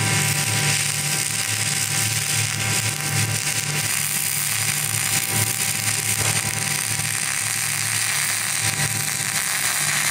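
MIG welding arc on stainless steel, running steadily: a continuous hiss with a fluttering low buzz underneath.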